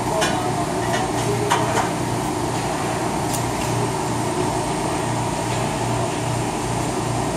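Steady hum of commercial rotisserie ovens and kitchen ventilation running, with a slow even pulse in the low drone. A few light metallic clinks come in the first few seconds.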